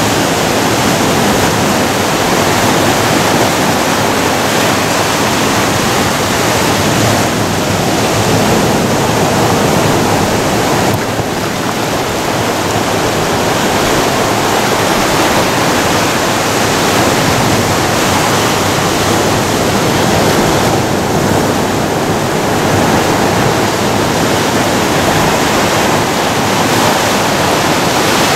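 Ocean surf breaking and washing in among shoreline rocks: a steady, loud rush of water.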